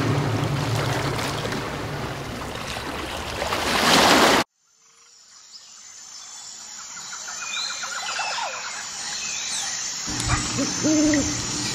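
Ocean surf washing over rocks, swelling to a breaking wave at about four seconds, then cut off abruptly. A quiet woodland ambience fades in with scattered bird calls, and near the end a low wavering call.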